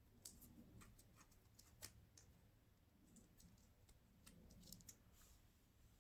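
Faint, irregular small clicks and light rustling from a watch on a nylon NATO strap being handled and worn on the wrist.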